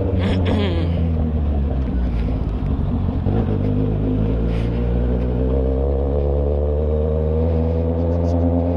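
Motorcycle engine running steadily at low revs while riding slowly over cobblestones.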